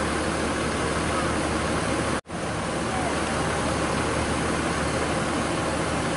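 Mercedes-Benz OH 1526 bus's diesel engine idling, a steady low hum under the chatter of a crowd. The sound drops out for an instant about two seconds in.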